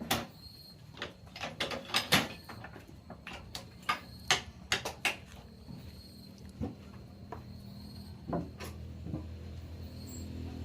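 A run of sharp, irregular knocks and clatters, thickest and loudest about two seconds in and thinning out later, over a steady low machine hum.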